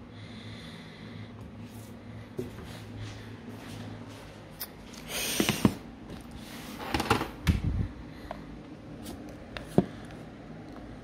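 Handling noise from hands moving phones about on a table: rubbing and bumps in two loud clusters midway, then a single sharp click near the end. A low steady hum fades out about four seconds in.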